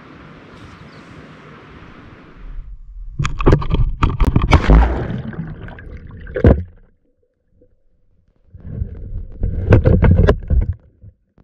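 Camera handled underwater in a lake: muffled sloshing, gurgling and knocks in two loud spells with a silent gap between them, after a steady hiss at first.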